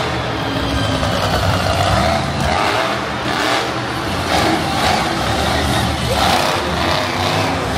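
Monster truck engine running hard and revving, with repeated surges in revs through the second half.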